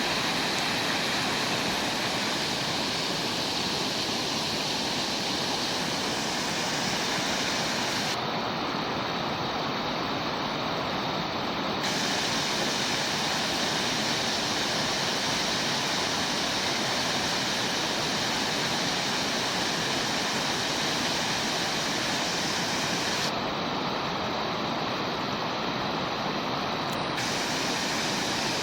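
Mountain creek rushing steadily, a loud even wash of water; twice its highest hiss drops away for a few seconds.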